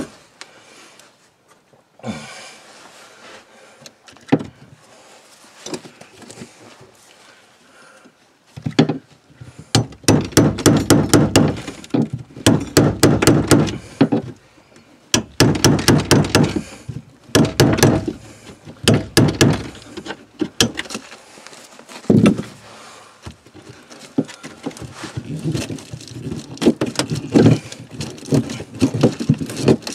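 Hand tools working at a shower drain fitting and the floor opening around it, from underneath: a few separate knocks, then long runs of rapid scraping strokes, and a heavy knock about two-thirds of the way in.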